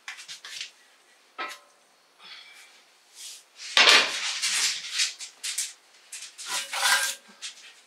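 Clattering and scraping of metal cookware being handled at an open oven, with a few short clanks that ring briefly. It is quiet at first and loudest about four seconds in.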